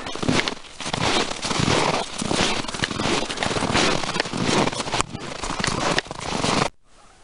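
Footsteps on packed snow at a walking pace, a continuous crackly crunching that rises and falls with each step. It cuts off suddenly near the end, leaving faint quiet.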